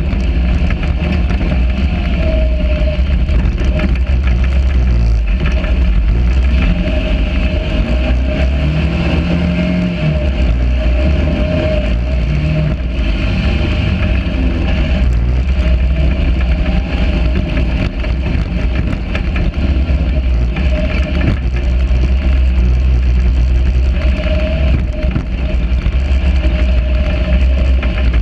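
Sand rail buggy's engine running hard as it drives over sand, heard from on board, its pitch rising and falling with the throttle.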